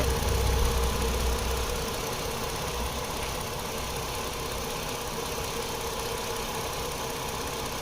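Steady hiss of nitrogen escaping from a car's A/C system while it purges at low pressure, under a low hum that eases off over the first two seconds.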